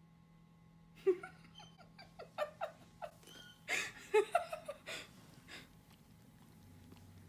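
Siberian husky yawning with a squeaky whine, among a run of short, high squeaks and breaths over a few seconds.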